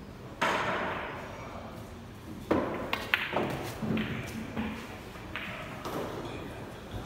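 Pool shot: a knock about half a second in, then several sharp clicks of billiard balls striking one another and knocking on the table over the next few seconds.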